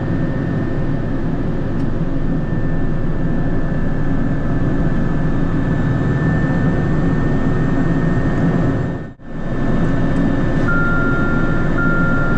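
Pilatus PC-12's single Pratt & Whitney PT6A turboprop heard from inside the cockpit while the aircraft taxis: a steady loud rumble with a high turbine whine over it. The sound cuts out briefly about nine seconds in, and near the end a steady beep sounds three times, each about a second long.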